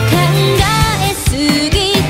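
Pop song: a singer holding notes with vibrato over a backing of drums and bass.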